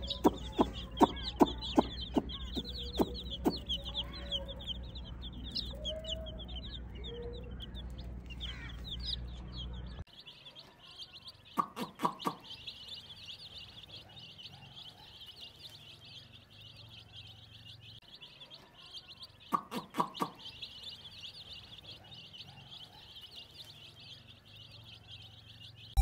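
Many baby chicks peeping constantly in a dense, high-pitched chorus. For the first ten seconds a low hum and a run of sharp clicks lie under it, then stop abruptly. Short clusters of louder sounds come twice, about twelve and twenty seconds in.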